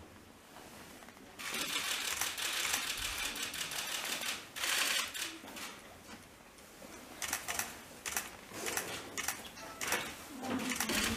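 Rapid, dense clicking and clattering, starting about a second and a half in, easing off near the middle and picking up again.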